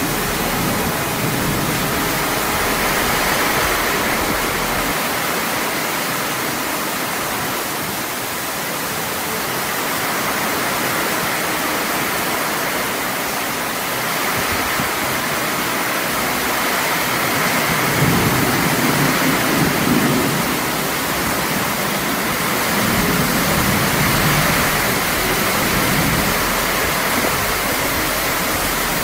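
Torrential tropical rain pouring down on paving and roofs in a steady, loud rush, with runoff splashing off the roof edge. It swells louder twice in the second half.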